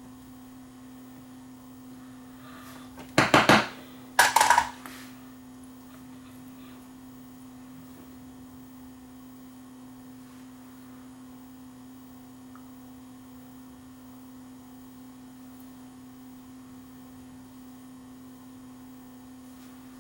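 A steady low electrical hum, one even tone, with two short, loud noisy bursts about three and four seconds in.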